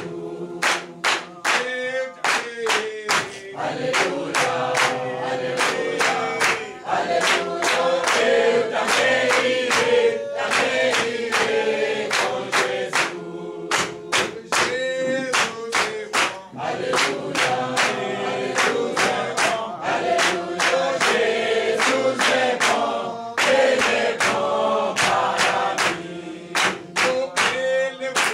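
Church congregation singing a worship song together, with hand clapping keeping a steady beat of about two to three claps a second.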